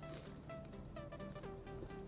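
Faint background music: a melody of held notes stepping up and down over a steady low tone and a light regular beat.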